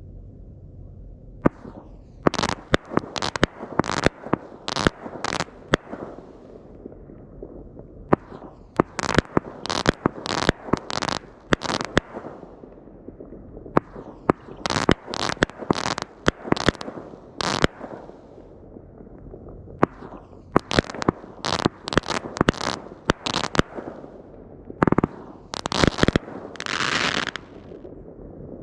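Heavyweight Fireworks 'Summer Inferno' consumer firework cake firing: sharp reports of shots lifting and breaking, several a second, in clusters separated by short pauses. It runs for about 25 seconds and ends in a longer, dense burst of crackle.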